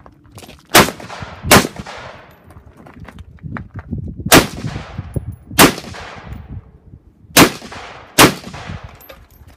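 Six rifle shots fired in a course of fire, loosely in three pairs: two about a second in, two around the middle and two near the end. Each shot is followed by a short echo tail.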